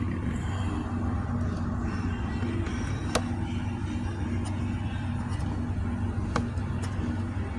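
Steady low hum of a running vehicle, with a few sharp clicks as the cabin air filter access cover is opened.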